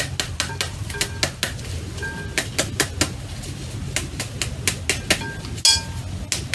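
A metal spoon tapping the back of a halved pomegranate, knocking the seeds out into a glass bowl: a quick, uneven run of sharp taps, about four a second, some with a short metallic ring.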